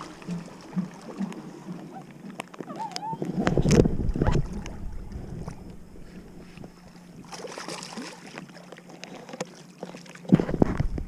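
Knocks and water sounds from a small paddle boat being handled, with a heavier rumbling stretch about three seconds in and another near the end.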